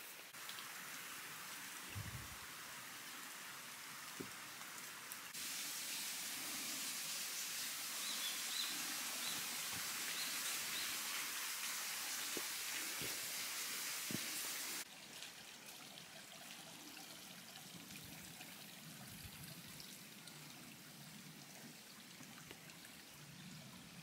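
Steady rush of a mountain stream running beside the trail, markedly louder from about five seconds in until about fifteen seconds, with sudden jumps at both ends. A few soft low thumps and some faint chirps sit under it.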